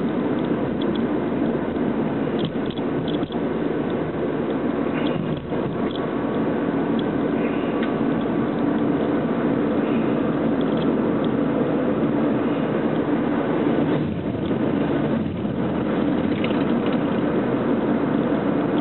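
Steady engine and road noise heard from inside a moving car's cabin, with a few faint clicks scattered through it.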